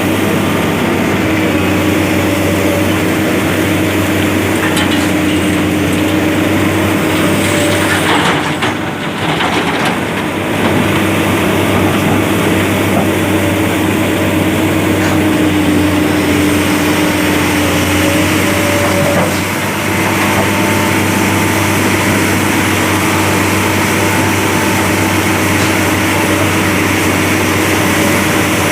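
Heavy diesel engine of a truck or excavator running steadily, its pitch wavering slightly, with a brief dip in loudness about eight seconds in.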